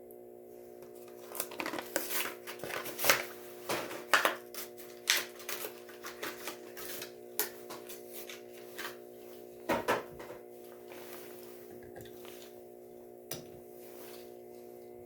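Plastic blister pack and card backing of a Matchbox die-cast car being handled and torn open: a run of crinkles, clicks and snaps for about nine seconds, then a single click near the end, over a steady hum.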